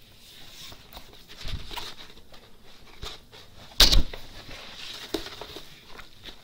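Rustling and handling noise as a large diamond painting canvas is moved and turned over on a wooden table, with a single loud thump a little under four seconds in and a softer one about a second and a half in.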